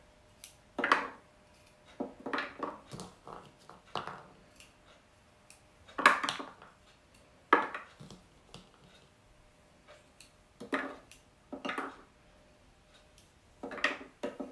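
Small radishes dropped one or a few at a time into a food processor's plastic bowl, each landing as a short hollow clatter, at uneven gaps of about one to two seconds. The processor's motor is not running.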